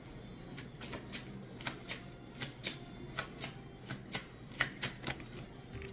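Tarot cards being shuffled by hand, the cards clicking in an irregular run, about two or three a second.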